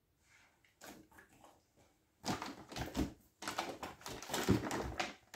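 Groceries and their packaging being handled and rummaged through: a few faint clicks, then from about two seconds in a busy stretch of rustling, crinkling and small knocks.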